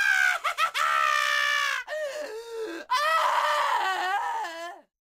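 Wicked-witch scream sound effect: a shrill, high voice screaming in four wails, the first two held high and steady, the last two lower and wavering. It cuts off sharply near the end.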